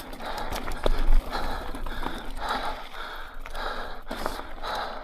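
A mountain biker's heavy, rhythmic breathing, a puff of breath about every half second, laboured in humid air. Scattered clicks and rattles come from the bike on the rough trail, with wind rumble on the microphone in the first second.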